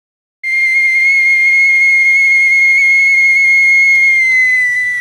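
A loud, high, single-pitched whistle that starts suddenly, holds steady for about four seconds, then sags in pitch and fades out near the end.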